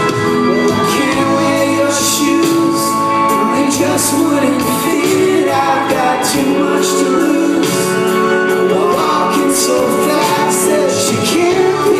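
Rock band playing live: electric guitars, drums with a steady beat of cymbal hits, and keyboards, with sung vocals over them, heard from the audience in a large hall.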